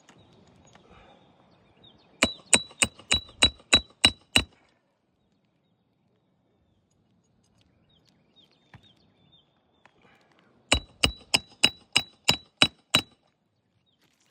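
Hammer blows on metal, driving roofing nails down into an asphalt shingle: two runs of about eight quick ringing strikes, about four a second, the second run starting about eleven seconds in.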